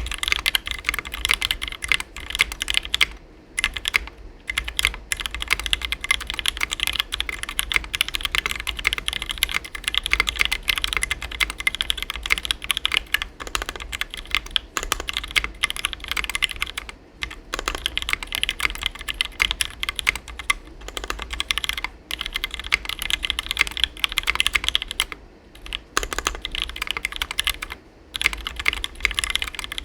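Fast, continuous typing on a custom 60% mechanical keyboard with lubed and filmed Gateron Black Ink linear switches on a brass plate, foam-filled case and ABS doubleshot keycaps. A dense stream of keystrokes, broken by a few brief pauses.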